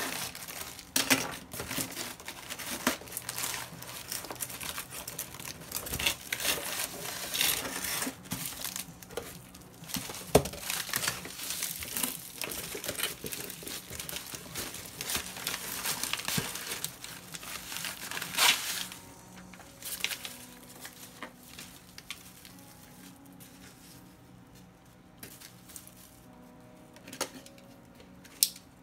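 Packing paper and plastic wrapping crinkling and rustling as they are pulled out of a cardboard box, with one sharp knock about ten seconds in. The rustling dies down to sparse, quieter handling sounds in the last third.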